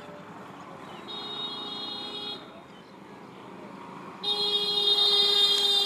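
A horn sounds twice with a steady, unwavering pitch: once about a second in for just over a second, then again near the end, longer and louder.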